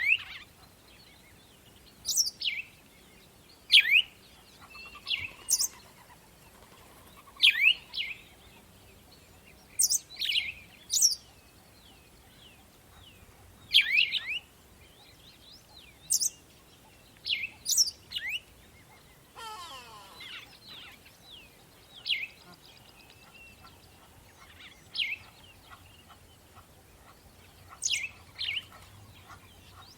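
Songbirds singing in the morning: loud, sharp, quickly sweeping chirps every second or two, with softer twittering between them and a brief buzzy trill about two-thirds of the way through.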